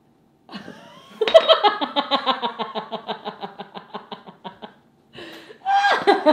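A woman laughing hard: a long run of quick "ha" pulses that gradually fades, a short breath in, then another loud burst of laughter near the end.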